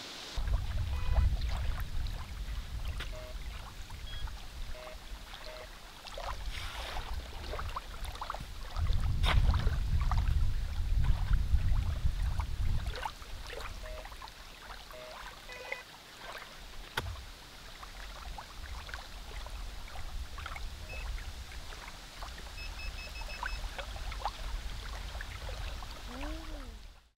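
Lakeshore ambience: wind rumbling on the microphone, heaviest near the start and again around ten seconds in, over small waves lapping on sand. Scattered clicks and knocks and a few short, faint beeps.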